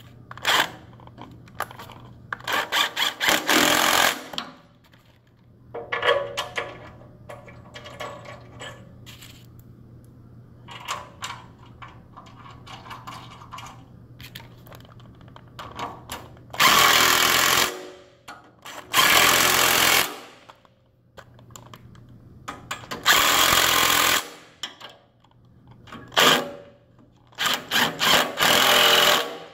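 Cordless power tool (a torque gun) running in several short bursts of about a second each, driving bolts into a steel lift base frame, with quieter clicks and handling between the bursts.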